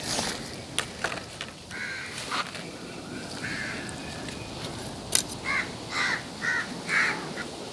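Crow cawing repeatedly, with a run of about five short caws in the second half. A few sharp clicks and taps come through as well; the loudest is a single click just before that run.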